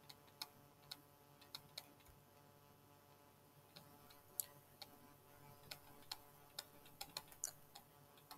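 Near silence broken by faint, irregular taps and clicks of a stylus writing on a tablet: a few in the first two seconds, then quicker runs from about four seconds in.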